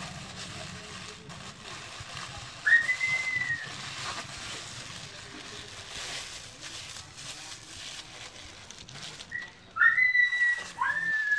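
Whistling: one clear whistled note a little under three seconds in that rises, holds and falls away, then a few more sliding whistled notes near the end.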